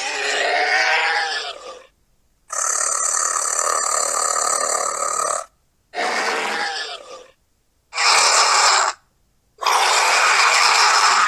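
Eopiraptor creature sound effects: a run of five separate calls broken by short silences. The first bends in pitch, the second is longer and steadier at about three seconds, and three shorter calls follow.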